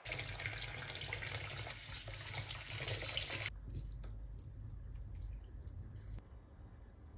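Water running into a stainless steel kitchen sink while rice is washed, cutting off sharply about three and a half seconds in. After that comes the softer trickle of cloudy rice-rinse water being poured off from a metal bowl into the sink.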